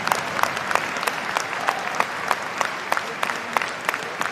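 Stadium crowd of football supporters clapping in unison, about three claps a second, over a steady crowd hubbub that slowly fades.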